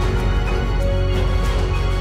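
Background music with sustained chords over a deep bass and a light steady beat.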